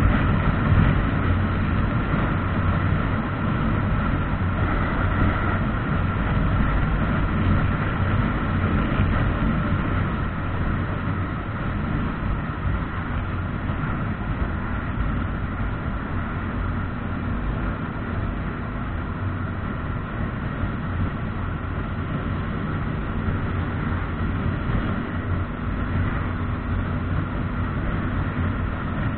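Motorcycle engine running steadily at cruising speed, heard from the bike itself, mixed with wind and road noise; it eases slightly about a third of the way in.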